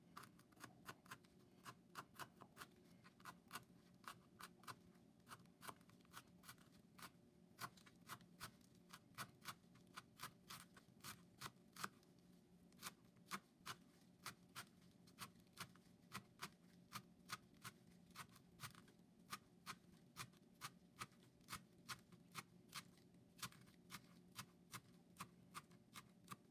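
Kitchen knife chopping fresh coriander on a plastic cutting board: a steady run of sharp taps, about three a second.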